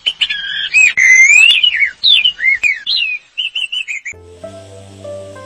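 Songbirds singing loudly in a quick run of sweeping, whistled notes. About four seconds in they stop abruptly and background music begins.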